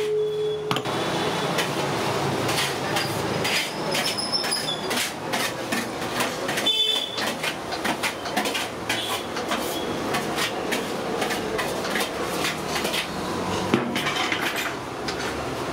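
Metal kitchen pots and utensils clattering, a dense, irregular run of short knocks and clicks over a steady background noise.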